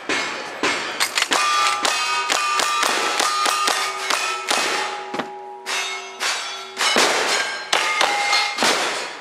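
A rapid string of gunshots at steel targets, about three a second, with a short lull about five seconds in. The hit plates ring with a clang after the shots.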